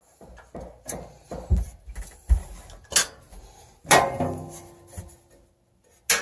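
Metal-on-metal handling of a pellet stove's sheet-steel side panel and a screwdriver: a string of knocks and scrapes, with sharp clanks about 3 and 4 seconds in, the second ringing briefly, and another just before the end.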